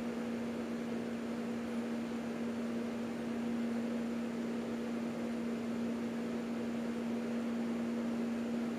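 A steady, unchanging hum with a faint hiss behind it, from an appliance or mains equipment in the room; no machine stitching is heard.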